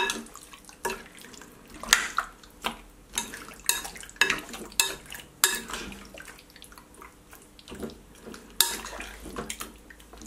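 Raw chicken wings being stirred and turned in a wet marinade in a glass bowl: squelching of the meat and a metal utensil clinking against the glass at irregular intervals.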